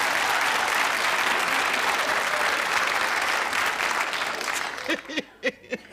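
Studio audience applauding, dying away about five seconds in, when a few short voice sounds come through.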